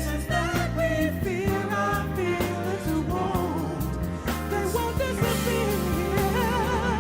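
A soul or R&B song with a singer holding wavering, ornamented notes over sustained bass and backing instruments.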